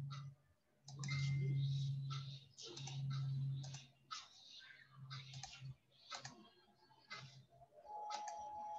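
Computer keyboard and mouse clicking in scattered taps, over a low hum that comes and goes in stretches of about a second.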